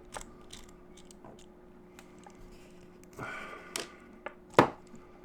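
Small clicks and taps of a screwdriver and metal lock parts being handled while a lock is taken apart, with a brief rustle a little past three seconds and one sharp click about four and a half seconds in.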